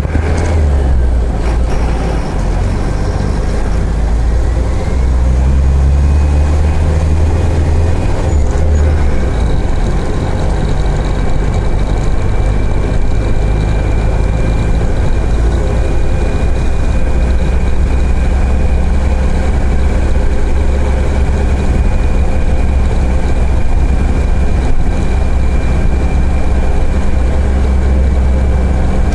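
Mercedes-Benz OF-1418 bus diesel engine pulling hard with its pitch climbing, a brief break about nine seconds in as a gear is changed on its six-speed gearbox, then running steadily at higher revs.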